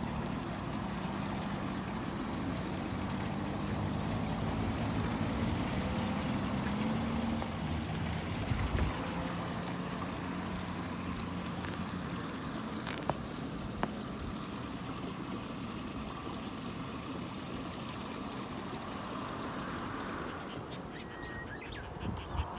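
Steady rush of flowing water, like a stream, with two sharp clicks about halfway through. Near the end a duck starts quacking.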